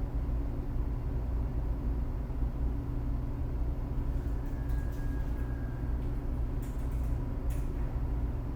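A steady low rumble, with a few faint clicks between about halfway and near the end.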